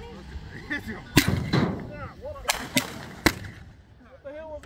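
Consumer fireworks going off at ground level: about five sharp bangs at uneven gaps over about two seconds, the first the loudest.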